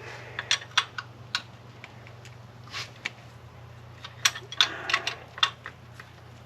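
Irregular sharp metal clicks and clinks of hand tools being worked onto a tight thermostat housing bolt in the engine bay, with a quicker run of clicks about four to five seconds in.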